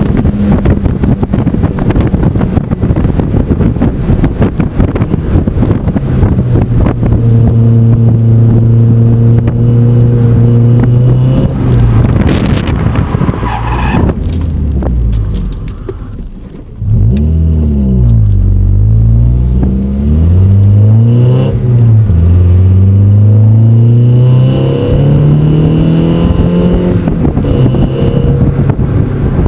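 Mazda Miata's four-cylinder engine heard from inside the cabin, running hard on a wet track with tyre spray. About halfway through there is a short skid as the car spins in the rain and the engine falls away to a low idle. It then revs up and down repeatedly as the car gets going again.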